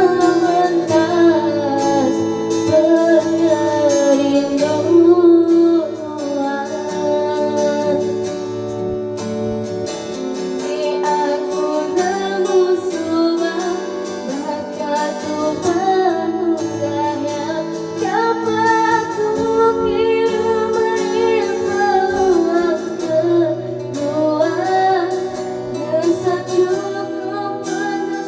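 Music: a woman singing a melody over a guitar accompaniment.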